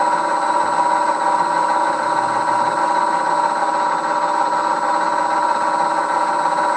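1938 Bridgeport M-head milling machine running steadily while its spindle feeds a 5/32 reamer down into a dowel hole in a metal cylinder block. A steady machine hum with several held tones at an even level.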